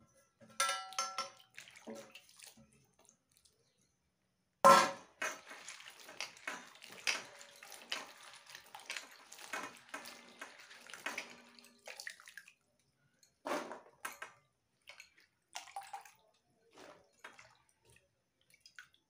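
Hands washing cut green beans and potato pieces in water in an aluminium kadhai: irregular splashing and sloshing, with clinks of the metal pan and a steel plate. One sudden loud hit about five seconds in, then a dense stretch of splashes that thins out in the second half.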